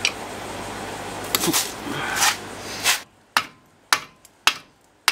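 A screwdriver scraping and prying at a Ford Festiva's front brake caliper over a steady hiss, then, about three seconds in, a block of wood knocking against the caliper three times about half a second apart, with a lighter fourth knock, to drive the caliper off the rotor.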